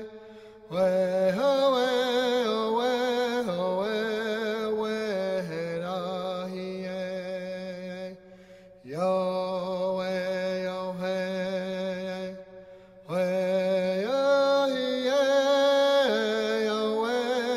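Slow music: a wavering melody over a steady low drone, in three long phrases, each starting after a brief pause (about a second in, about nine seconds in and about thirteen seconds in).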